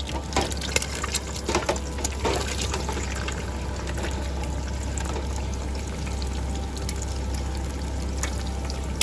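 Rain falling steadily, with a cluster of sharper drops or taps in the first three seconds.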